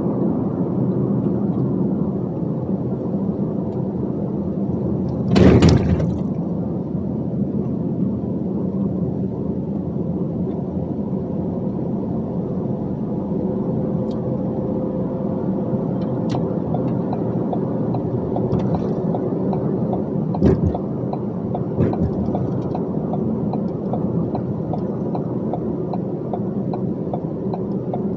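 A dump truck's engine and road noise as it drives along, a steady drone. About five seconds in there is one loud, short clattering thump, and later two lighter knocks a second and a half apart.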